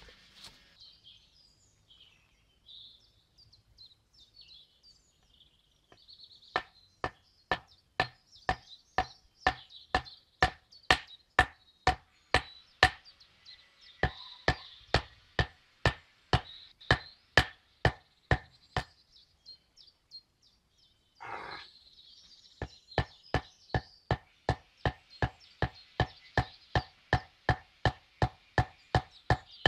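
Sharpened wooden stakes being beaten into the ground: a steady run of sharp wooden knocks, about two a second, stopping for a few seconds partway and then starting again. Birds chirp faintly in the background.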